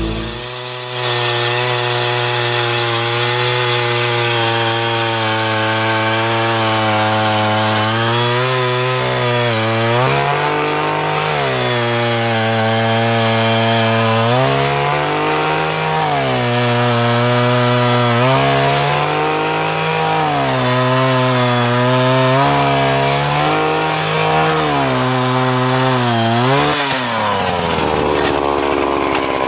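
Two-stroke engine of an Eskimo gas ice auger running at full throttle while drilling through lake ice. From about eight seconds in, its pitch repeatedly sags and recovers every couple of seconds as the auger is worked up and down in the hole. Near the end the engine speed drops sharply.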